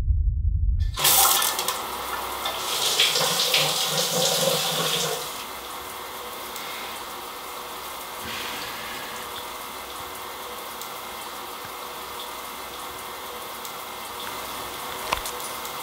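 A low rumble cuts off about a second in as a shower head starts spraying. Loud hissing water runs for a few seconds, then settles to a quieter steady hiss. There is a sharp click near the end.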